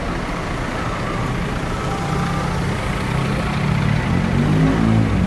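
Street traffic, with a motor vehicle's engine humming low and growing louder toward the end.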